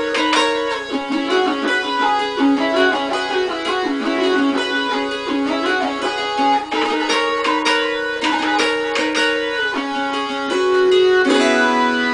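Instrumental music: a guitar picked in quick repeated notes, together with sustained melody notes from a small keyboard synthesizer.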